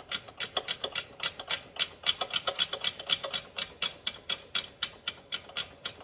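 A 10 mm ratcheting wrench clicking steadily as it turns a bolt, with quick, even clicks about six a second.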